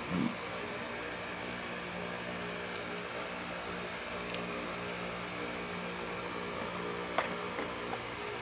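A steady mechanical hum, with a soft thud at the start and a few light clicks as tool accessories are handled over a plastic tool case.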